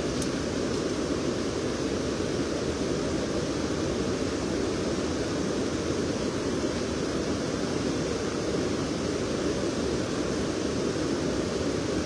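Steady rushing of a flooded river's fast current pouring over a concrete weir, an even, unbroken sound.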